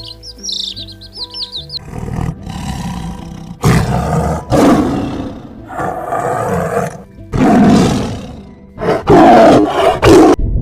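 Birds chirping over soft background music. About two seconds in, a series of about six loud, rough animal roars takes over.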